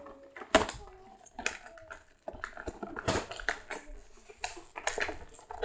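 Plastic clicks, knocks and rattles of a Nerf Zombie Brainsaw toy blaster being handled, with one sharp click about half a second in.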